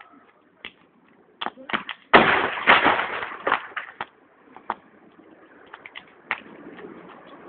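Bonfire of scrap wood crackling with sharp, scattered pops, and a loud dense run of crackling that starts suddenly about two seconds in and dies away over a second or so.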